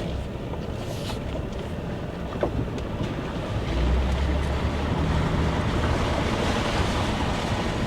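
Ford Raptor pickup driving slowly over a rough dirt trail: a steady low rumble of engine and tyres that grows louder about four seconds in, with a few light knocks.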